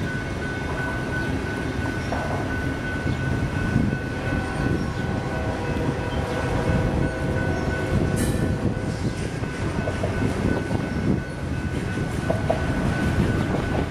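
Double-stack intermodal freight train of loaded well cars passing close by, its wheels rumbling steadily on the rails. A thin steady high tone runs through it, and there is a brief high squeal about eight seconds in.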